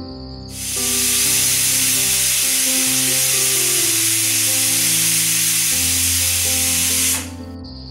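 Miniature pressure cooker whistling: steam venting past the weight in a loud, steady hiss that starts about half a second in and cuts off sharply near the end. This is the single whistle the dish is cooked for.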